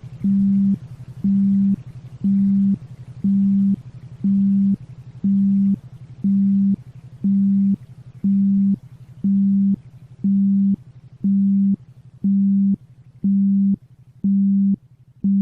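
Electronically generated low tone pulsing on and off about once a second, each beep about half a second long, over a steady lower hum: a rhythmic isochronic-style tone from a 'healing frequency' sound track.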